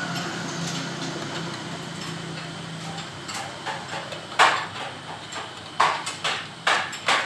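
Workshop handling noises at a motorcycle on the bench. A steady low hum runs for the first three seconds, then comes a run of sharp knocks and clanks, the loudest about four and a half seconds in and several more near the end, as metal parts and tools are handled.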